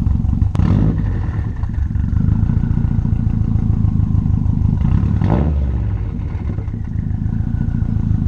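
Subaru STI's turbocharged flat-four running loud through a freshly fitted Tomei titanium single-exit exhaust with a catless downpipe, on its first start after the install. The throttle is blipped briefly about half a second in and again about five seconds in.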